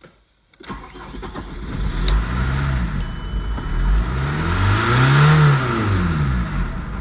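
VW Passat B5's 1.9 TDI AVB four-cylinder turbodiesel starting under a second in, then being revved in repeated blips, the pitch rising and falling each time, up to about 4000 rpm.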